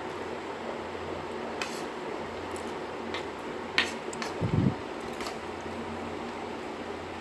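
Someone eating puffed rice and ghugni: a few sharp clicks and a soft thump about four and a half seconds in, over the steady hum of a fan.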